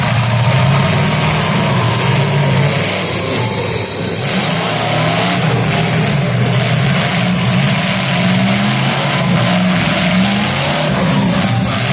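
Demolition derby car engines running and revving loudly, their pitch rising and falling, with a couple of knocks near the end.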